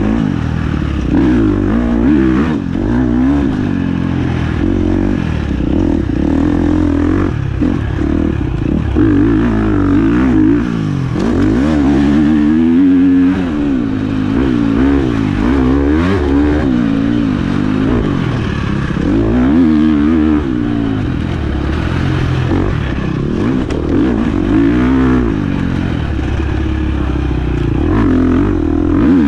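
1996 Honda CR125's two-stroke single-cylinder engine being ridden, revving up and falling off over and over, its pitch climbing and dropping every second or two.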